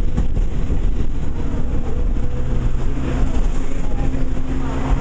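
Rail replacement bus driving, heard from on board: a steady low engine and road rumble, with a clearer engine note coming in about three seconds in.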